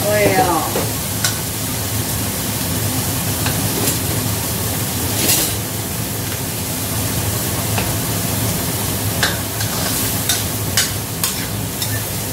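Minced meat and garlic sizzling in a stainless-steel wok while a metal spatula stirs and scrapes through it, with scattered sharp clicks of the spatula against the pan, more of them near the end.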